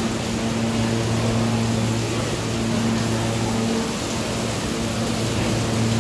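Rainwater pouring in a heavy stream from a ceiling vent and splashing onto a subway track bed, a steady rushing splash. A steady low hum runs underneath.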